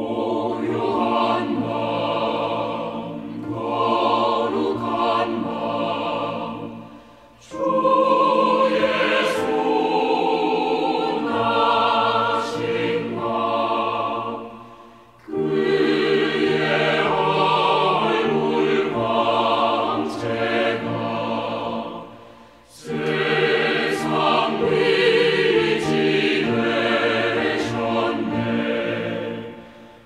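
Background music: a choir singing a Christmas carol, in phrases of several seconds with short breaks between them.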